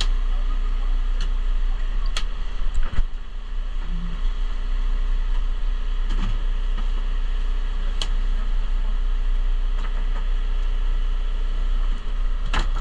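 Steady low drone of a sportfishing boat's engine running, with a few scattered knocks and clicks on deck.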